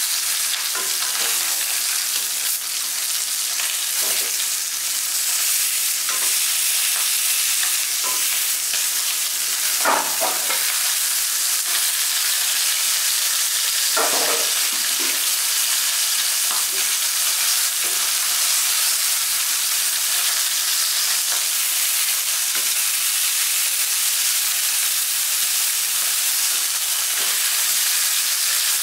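Torpedo scad shallow-frying in hot oil in a nonstick pan, with a steady sizzle. A metal spatula knocks and scrapes in the pan a few times while the fish is turned, loudest about ten and fourteen seconds in.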